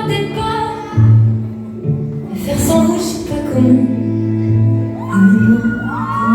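Music with singing, steady and loud throughout, with sustained notes over a bass line.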